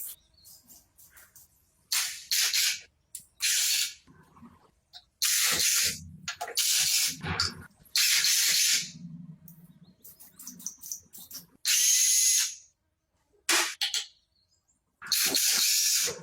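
Repeated short bursts of hissing spray, about ten of them, each under a second, with faint clicks and a low hum in the gaps between them.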